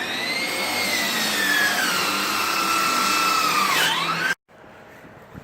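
Power tool motor whining: it spins up quickly, its pitch sags slowly as it works under load, dips once more about four seconds in, then stops abruptly.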